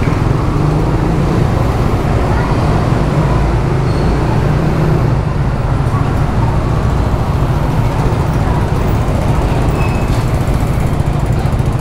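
Many motorbike and scooter engines running together in a dense crowd of bikes on a ferry's covered vehicle deck: a loud, steady low rumble with faint voices mixed in.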